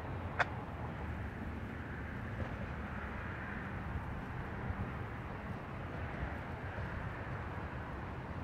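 Diesel locomotive engine running with a steady low rumble, with a single short click about half a second in.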